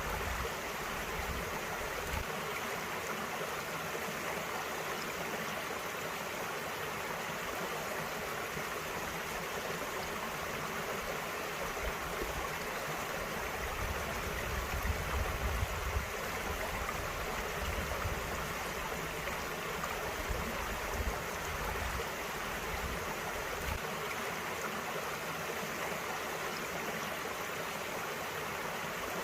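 Small valley brook flowing, a steady rush of running water with no breaks.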